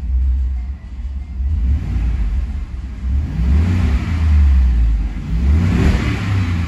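2018 Ford F-150's 5.0-litre V8 engine revved up from idle in park, climbing to roughly 3,500–4,000 rpm in two pulls, around the middle and near the end.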